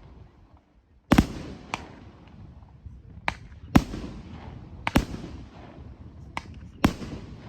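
Fireworks display: about seven sharp bangs from aerial shells going off, some louder and some fainter, each trailing off in a rolling echo.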